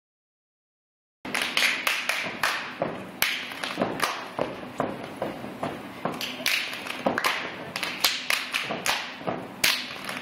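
Step team stepping: hand claps, body slaps and foot stomps in a fast, uneven rhythm of several strikes a second, starting about a second in.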